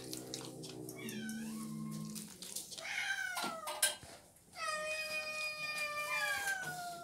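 Domestic cat meowing in drawn-out calls that fall in pitch: a short one about three seconds in and a long one through the last two seconds. A low, steady growl comes first.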